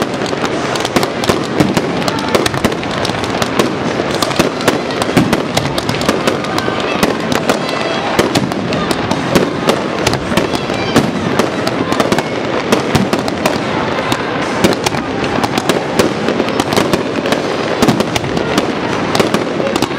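Fireworks display: aerial shells bursting overhead in a dense, unbroken stream of bangs and crackles, many every second.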